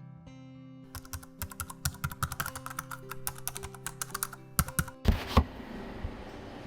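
Soft background music with held notes, overlaid from about a second in by a quick, dense run of sharp clicks. Near the end the music stops with two or three loud knocks, leaving faint room tone.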